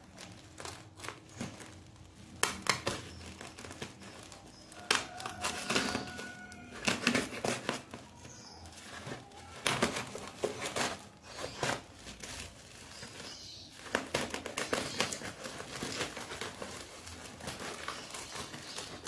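Utility knife slicing through the packing tape and wrapping of a parcel, with irregular crinkling and tearing of the tape-covered bubble-wrap layer as it is pulled open.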